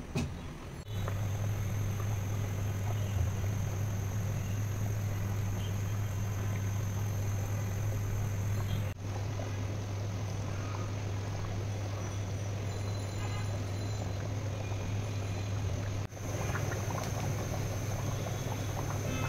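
A large pot of beef trotter curry boiling hard, the liquid bubbling steadily over a constant low hum.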